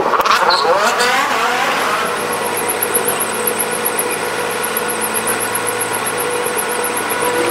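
Canal boat's engine running steadily, heard sped up in a fast-forwarded recording.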